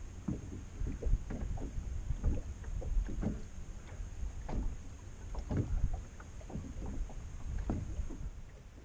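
Small waves slapping and lapping against the hull of a small boat in irregular splashes, over a low rumble of wind on the microphone.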